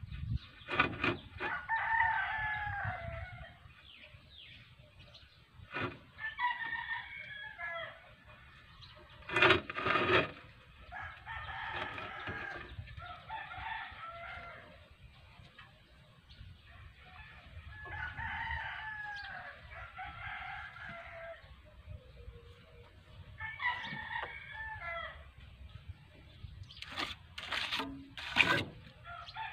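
A rooster crowing over and over, a long crow about every five to six seconds. A few loud sharp knocks come in between, the loudest about ten seconds in and near the end.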